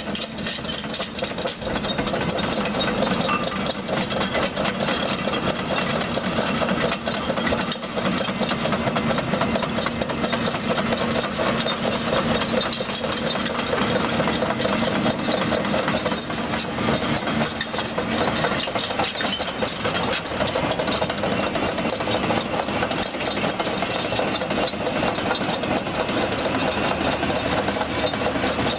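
Caterpillar 320D2 hydraulic excavator travelling on steel tracks: its diesel engine runs steadily under a continuous rattle and clatter of the track links.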